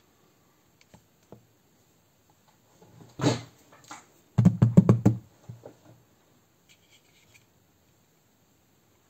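Knocks from handling the disassembled Tokyo Marui M9 electric airsoft pistol on a work mat. One knock comes about three seconds in, then a quick run of five or six knocks a second later, and a few faint clicks after.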